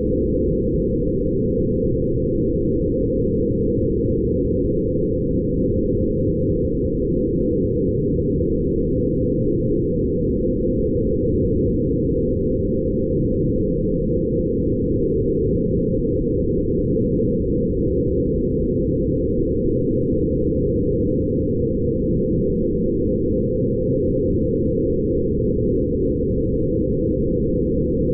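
Steady low drone: a sonification of photographs of light, made by passing the images through audio editing software and shaped into a meditative ambient texture. It holds an even level with no high tones at all.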